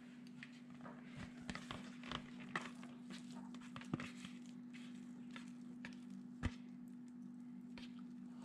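Light scraping, taps and knocks of a kitchen utensil against a mixing bowl and loaf pan as thick, wet bread batter is scooped in, with two sharper knocks about four and six and a half seconds in. A steady low hum runs underneath.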